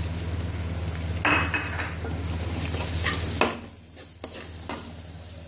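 Onions, spices and chopped tomatoes sizzling in hot oil in a metal pan while a metal spatula stirs them, scraping and clicking against the pan. The sizzle falls quieter about three and a half seconds in, with a few sharp spatula clicks.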